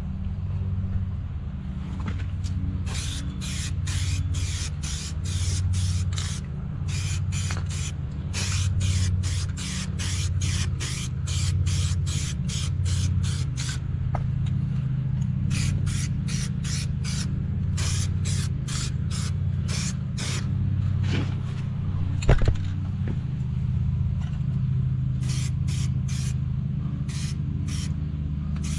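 Aerosol spray-paint can hissing in dozens of short squirts, a couple a second, laying a first coat of paint on a tractor's belt pulley mount. A steady low rumble runs underneath, and a single sharp knock comes about three quarters of the way through.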